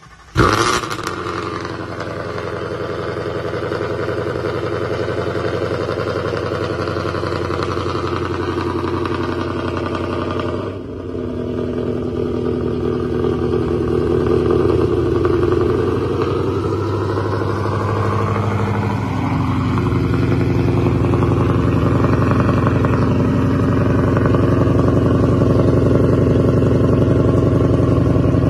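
Ford Mustang GT's 5.0-litre V8 starting by remote after sitting a few days: a loud flare about half a second in, then a steady cold idle through the exhaust.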